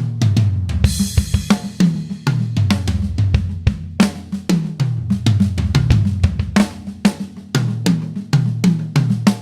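Premier XPK drum kit being played: a beat on snare, bass drum and hi-hat, broken up by tom fills that step down from the high toms to the floor toms. Crash cymbals ring about a second in and again about four seconds in.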